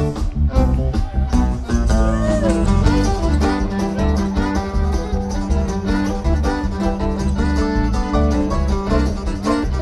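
Background instrumental music with plucked string instruments playing a run of quick notes over a steady beat.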